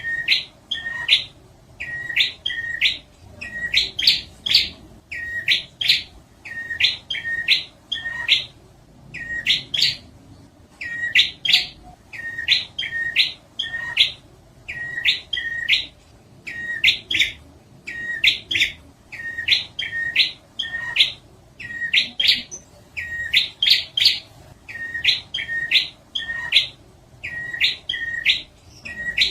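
Prinia (prenjak) song played as a trapping lure: loud chattering phrases repeated about once a second, each a short low note followed by quick, sharp, high chips.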